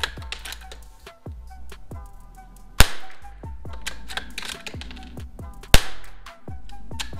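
Two shots from a Ruger Precision Rimfire .22LR rifle firing CCI Standard Velocity rounds, about three seconds apart, each a sharp crack with a short tail. Background music with a steady beat plays under them.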